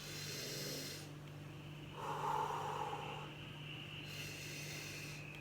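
A person taking about three long, deep breaths in and out with her head under a towel over a bowl of steaming herbal infusion: steam inhalation to clear the chest. A faint steady hum runs beneath.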